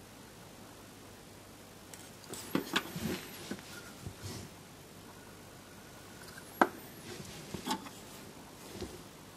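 Handling noise: scattered light clicks and knocks as a plastic miniature model is moved about on a desk, with the sharpest click about six and a half seconds in.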